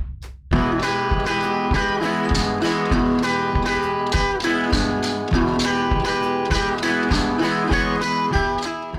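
Background music: guitar with a steady beat, starting about half a second in.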